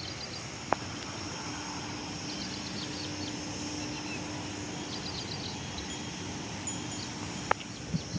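Insects chirping steadily and high-pitched, in repeated short clusters, with two sharp clicks, one about a second in and one near the end.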